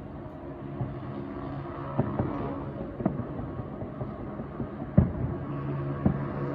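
Fireworks bursting as a string of deep booms, about five of them, the loudest about five seconds in, over the steady hum of the cruise boat's engine.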